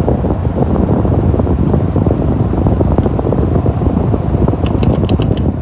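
Early-1980s SMC U42 ceiling fan with an SMC Laguna motor running on high speed. Its strong airflow buffets the microphone with a loud, fluttering low rumble. A quick run of clicks comes near the end.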